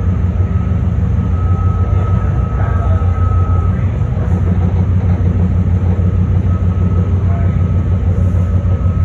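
BART Fleet of the Future train running along the track, heard from inside the front cab: a steady low rumble of wheels and motors, with a faint thin whine that comes and goes.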